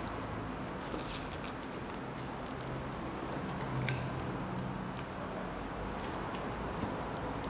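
Steady low hiss, with one small metallic clink about four seconds in from a cigarette lighter being readied to light a cigarette.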